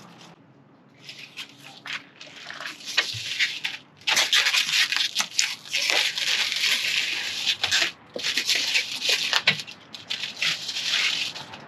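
Repeated rubbing and crackling on new acrylic screen-door panels, in bursts of one to two seconds with short pauses between, as the panels are cleaned and finished off.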